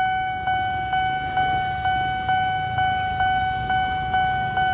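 Railway level-crossing warning bell ringing, an electronic ding struck about twice a second, signalling an approaching train as the barriers close. Motorcycle engines run under it as riders cross.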